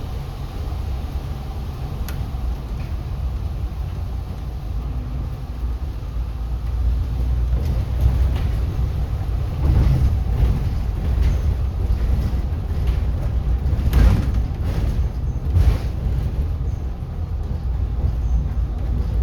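Inside a moving city bus: a steady low rumble of engine and road, with several short knocks and rattles from the bus body, the loudest about three-quarters of the way through.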